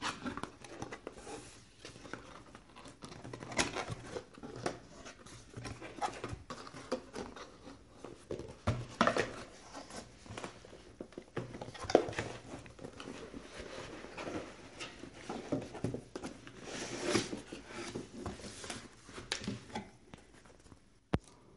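A cardboard box being opened and unpacked by hand: the flaps and the white foam packing insert scrape, rustle and knock irregularly, with a few sharper knocks along the way.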